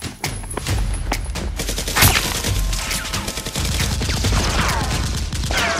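Rapid, continuous gunfire sound effects in the manner of automatic fire, stand-ins for Nerf blasters shooting, with a loud crack about two seconds in and a few falling whines near the end.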